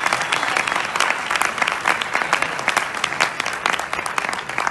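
A group of people applauding: many hands clapping at once in a dense, steady patter that thins slightly near the end.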